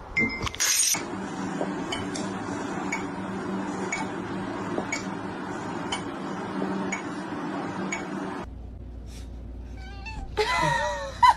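Domestic cat meowing, several bending calls near the end. Before that, a steady low hum with faint clicks, and a short loud noise right at the start.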